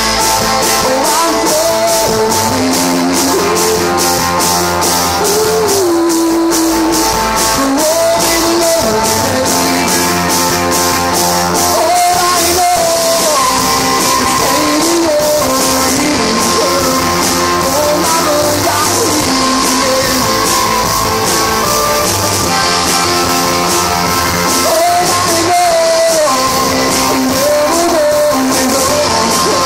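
Live rock band playing: a male lead vocal over electric keyboard, bass guitar, electric guitar and a drum kit with a steady cymbal beat. Recorded loud and harsh on a phone's microphone.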